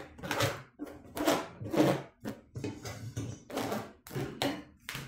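Rubbing and scraping strokes, about two a second, as heavy bread dough is handled and worked out of the mixer bowl.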